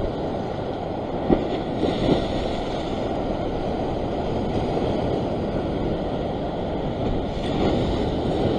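Ocean surf washing against a rock ledge, a steady rushing with wind buffeting the microphone. A couple of light knocks come about a second and two seconds in.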